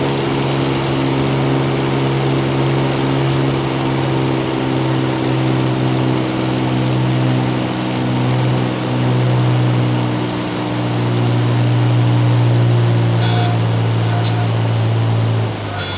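Cessna 206's six-cylinder piston engine and propeller running steadily at approach power, heard inside the cabin, with a slight wavering partway through. Near the end the engine note drops as power comes off for the landing, and the stall warning horn sounds briefly just before and again right at the end, as the plane flares toward touchdown.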